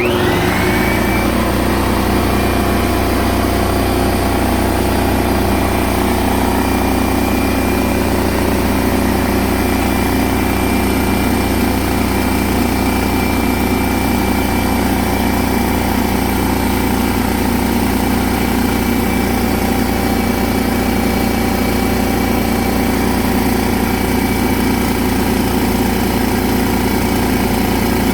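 DeWalt D55168 15-gallon air compressor starting up: the motor spins up with a brief rising whine, then runs steadily as it pumps up the tank. It is pumping properly again after being repaired for slow pumping.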